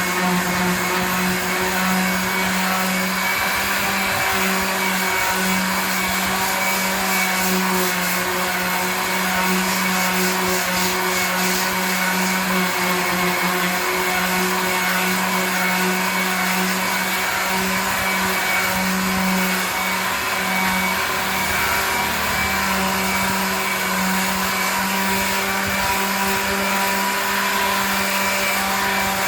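Small electric power tool running steadily, with a constant motor hum over a wide hiss, as used for machine rubbing of a wood polish finish.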